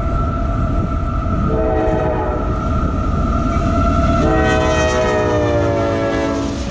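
Diesel locomotive's air horn sounding a long chord over the steady low rumble of the train, growing fuller about four seconds in and sagging slightly in pitch near the end.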